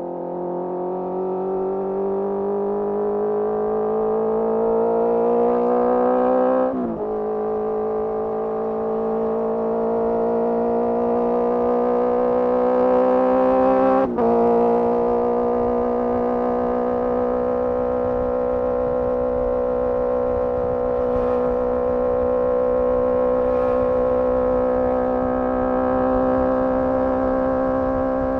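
Honda CBR650R's inline-four engine through a MIVV MK3 carbon slip-on exhaust, accelerating with the revs climbing steadily. Two quick upshifts come about seven and fourteen seconds in, after which the revs hold nearly steady at cruising speed. Wind rushes past underneath.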